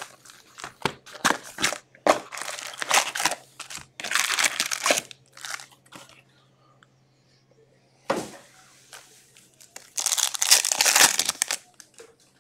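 Foil trading-card pack wrappers crinkling and cards being handled: a run of short rustling, crackling noises, a quiet spell a little past the middle, then a longer, louder crinkle near the end.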